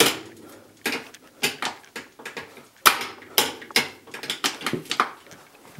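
Metal linkages on a Polaris Sportsman 500 ATV being worked back and forth by hand, giving a run of irregular sharp clicks and clunks, several a second. The linkages are newly hooked up after an engine swap and still need adjusting.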